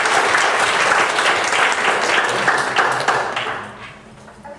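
Audience applauding, dying away about three and a half seconds in.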